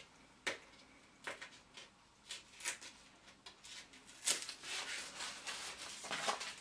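Protective cover sheet rustling and rubbing as it is pulled off a computer monitor's screen: a few short, faint scrapes at first, then a longer rustle in the last couple of seconds as it slides off.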